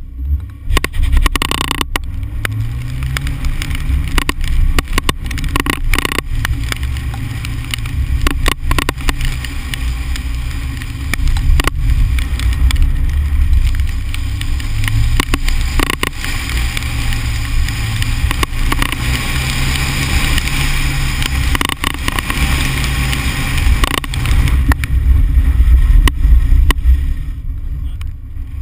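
Car engine revving up and falling back again and again as the car accelerates and brakes between cones on an autocross course. Heavy wind buffeting on a microphone mounted outside the car's door.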